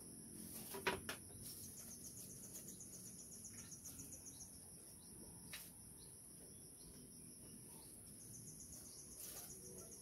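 Faint insect chorus: a steady high-pitched drone with a rapid pulsing trill that comes in twice. A couple of sharp clicks about a second in, and one more a few seconds later.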